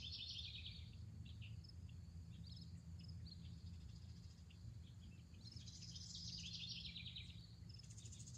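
Faint outdoor ambience with high chirping and rapid trilling from small wildlife, thickest at the start and again from about five and a half to seven and a half seconds, over a low steady hum.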